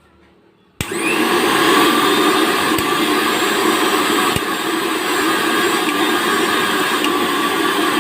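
Lifelong Power Pro 500 W mixer grinder switched on about a second in, its motor then running loud and steady.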